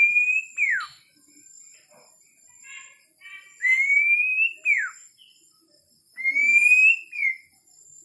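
Three clear whistles about three seconds apart, each a slowly rising note that ends in a quick downward slide.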